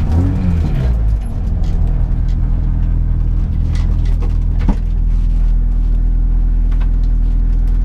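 Peugeot 106 S16 rally car's four-cylinder engine heard from inside the cabin: its revs fall in the first second, then it idles steadily while the car is held at the stage start. A single sharp click comes a little before five seconds in.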